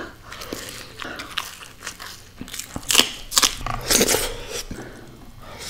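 Close-up eating sounds: a person biting and chewing food by mouth, with crisp crunches, loudest about three and four seconds in, amid wetter chewing.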